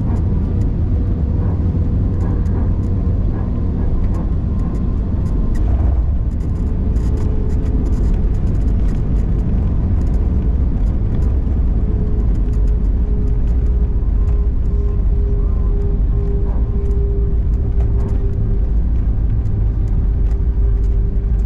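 Airliner cabin noise inside an Airbus A320-200: a steady, loud low rumble with a steady hum that sinks slightly in pitch. Scattered light rattles come about a third of the way in.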